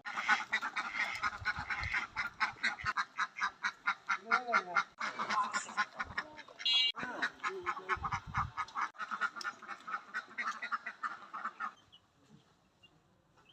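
A flock of ducks quacking, a dense chorus of many calls a second that stops suddenly near the end.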